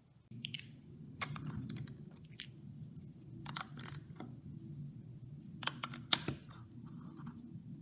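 Plastic LEGO bricks and tiles being handled and pressed together: a series of sharp clicks and snaps in small clusters, over a low steady hum.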